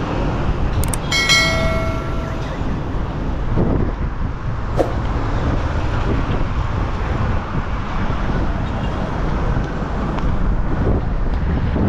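Strong gale wind buffeting the microphone, a dense steady low rumble. About a second in, a short steady horn-like tone sounds for just over a second.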